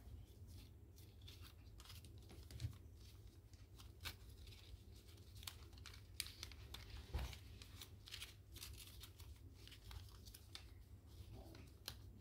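Faint crinkling and rustling of origami paper being folded and creased by hand, made up of scattered soft ticks with a few slightly louder ones, over a low steady hum.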